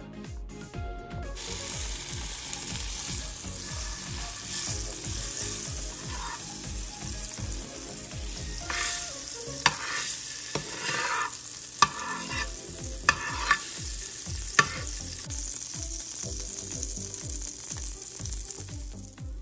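Butter and small dollops of pancake batter sizzling steadily in a hot nonstick frying pan. The sizzle swells briefly a few times in the middle, with several sharp clicks.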